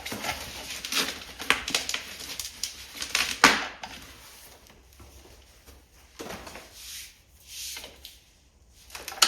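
Packaging being handled while unpacking: rustling and crinkling with sharp clicks and knocks over the first few seconds, then quieter scattered rustles and a single click near the end.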